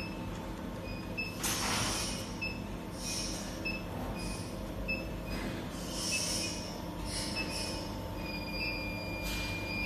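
Induction heating machine running under load, heating a part in its copper coil: a steady tone with a high-pitched whine that sounds in short spurts and holds longer near the end.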